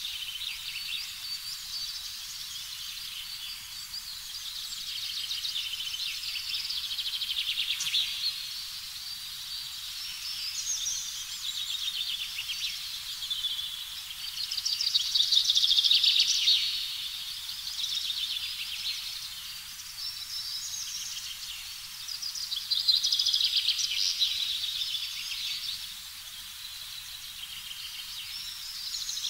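Nature ambience: a dense, high-pitched chorus of chirping calls that swells and fades in waves, loudest around the middle and again about three quarters of the way through.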